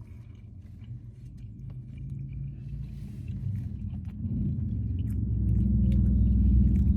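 A low vehicle rumble that grows steadily louder from about halfway through, with faint chewing and small clicks as hot pizza is bitten into.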